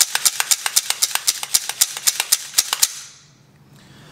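Rapid, even series of sharp metallic clicks, about five or six a second, from an AR-15 rifle being worked by hand after lubing, stopping about three seconds in.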